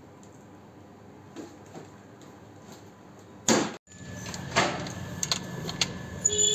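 Faint room tone, then after a sudden cut, an adjustable wrench working the flare nut on a split air conditioner's copper refrigerant pipe: several sharp metal clicks over a steady low hum, with a bird chirping near the end.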